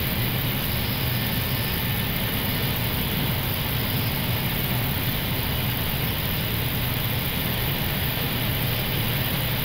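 Steady flight-deck noise of an Airbus A321neo on final approach: airflow over the airframe and engine hum, even in level throughout.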